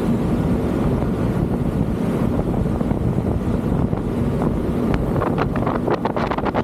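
Wind buffeting the microphone on the deck of a moving ferry, over the boat's steady low drone, with a few brief crackles near the end.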